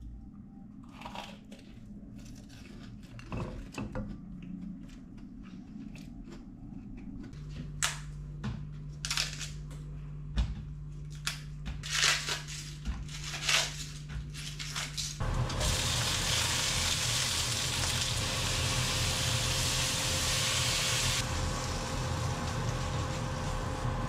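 Cabbage leaves being torn by hand, a run of crisp snaps and crunches over a steady low hum. Then, a little over halfway through, a sudden loud sizzle of oil and cabbage in a hot wok, which holds for several seconds and eases somewhat near the end.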